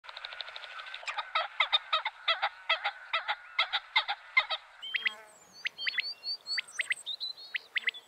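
Flock of waterfowl honking, a quick run of repeated calls. About five seconds in, this gives way to sharp, high whistled chirps.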